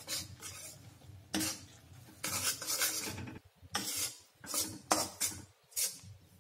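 Metal spatula scraping and stirring gram flour in ghee against an iron kadhai, a run of irregular rasping strokes on the pan as the besan is roasted on low flame.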